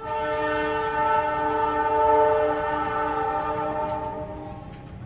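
Multi-note air horn of an approaching CC206 diesel locomotive, sounding one long blast that starts suddenly and fades out near the end.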